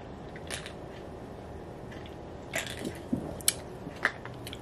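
A man drinking from a soda can: sips and swallows, with several short sharp clicks and smacks spread through, the loudest about three and a half seconds in.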